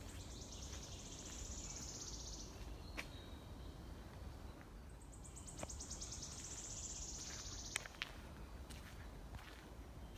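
A small songbird sings a high, rapid trill twice, each about three seconds long, with a few sharp clicks of footsteps on the forest floor in between and a low rumble underneath.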